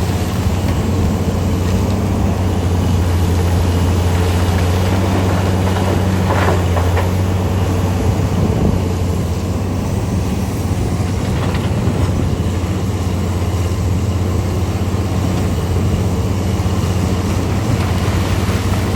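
Heavy diesel mining machinery running steadily with a deep, even engine drone. A brief rush of noise comes about six and a half seconds in.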